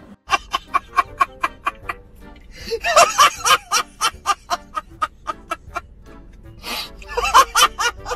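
A man laughing hard, in quick repeated bursts of about five a second, breaking into two louder, longer howls of laughter about three seconds in and again near the end.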